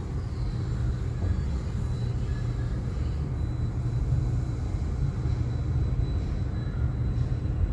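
Steady low rumble of a moving vessel underway, even throughout, with a faint thin high tone above it.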